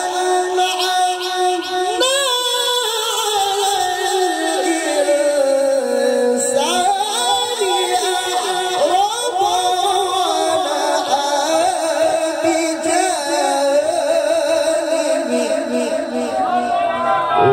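A man's voice singing a long, ornamented melodic line into a microphone and amplified over a PA system: drawn-out held notes that waver and glide up and down.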